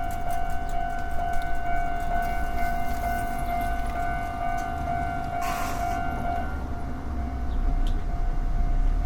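Japanese railway level-crossing warning bell ringing, a repeating electronic ding just under twice a second, which stops about six and a half seconds in. A low rumble runs underneath, with a brief noise burst shortly before the bell stops.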